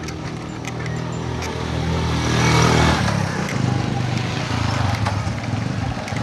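A motor vehicle engine running steadily. It grows louder, with a rush of noise that peaks a little under halfway through, then eases back to a steady run.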